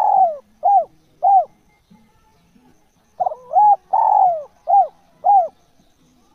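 Spotted dove cooing: the end of one phrase, a long falling coo and two short coos, then about three seconds in a full phrase of a quick stammered double note, a longer falling coo and two short arched coos.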